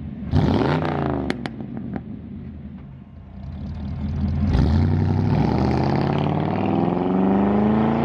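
1964 Chevrolet Impala's 283 V8 engine revving: a short blip about half a second in, then the engine note climbs steadily from about four seconds in.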